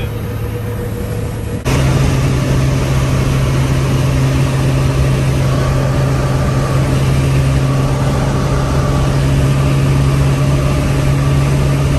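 OBS Ford pickup's engine droning steadily at close to 100 mph, heard inside the cab over wind and road noise. The sound jumps abruptly louder about two seconds in.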